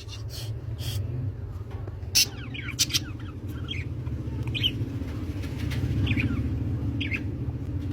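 Pet parrots giving short chirps every second or so, with a few sharp clicks, over a steady low hum.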